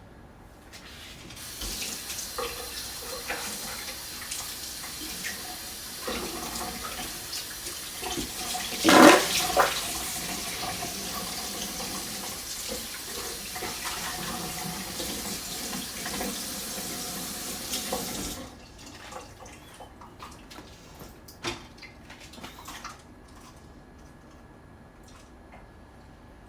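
Kitchen tap running into a sink for about seventeen seconds, with a louder splash about nine seconds in; after it stops, a few light clicks and knocks.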